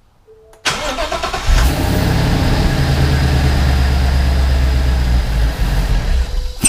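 Car engine with a GT350 intake manifold and throttle body cranked and started, settling into a steady idle. It then shuts off with a sharp pop near the end, a shutdown pop that the owner calls completely normal for this manifold and throttle body.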